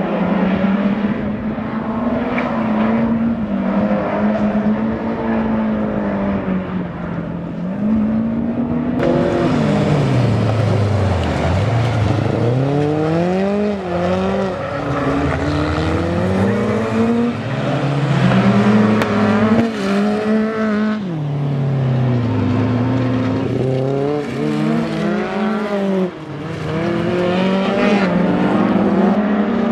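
Several race cars' engines running hard on track, revving up and dropping back again and again as they accelerate and lift, with overlapping engine notes from more than one car.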